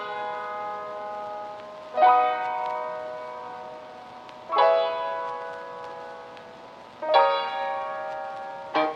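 Slow piano music: sustained chords struck about every two and a half seconds, each left to ring and fade.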